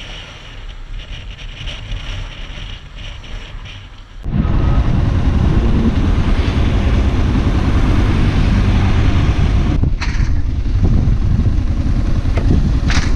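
A motorcycle on the move, with wind buffeting the microphone. After a quieter opening, the sound jumps abruptly to a loud, steady rush about four seconds in.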